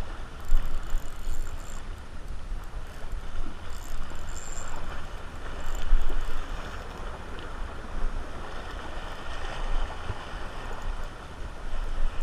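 Sea water washing and splashing against concrete breakwater blocks, with wind rumbling on the microphone.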